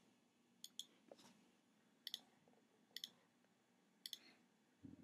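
Faint clicking from a computer pointing device: about four quick clicks, each a close press-and-release pair, roughly a second apart.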